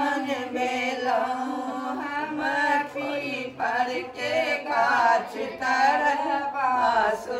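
Several women singing together in a chant-like melody, over a steady low held note.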